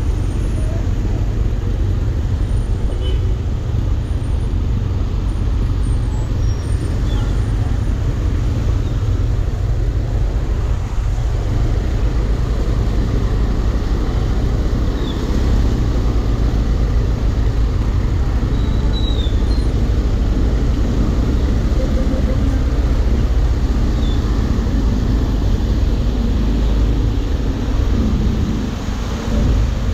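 Motorcycle riding through floodwater: the engine running while the front wheel splashes and sprays water, over a steady low rumble.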